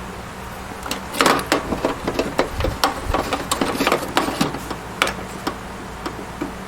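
A 3.5-inch hard drive being slid and seated into a desktop PC's metal drive bay: a run of irregular clicks, knocks and scrapes, stopping about five and a half seconds in.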